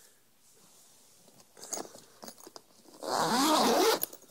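A few faint handling clicks, then a zipper pulled open in one quick stroke lasting about a second, near the end.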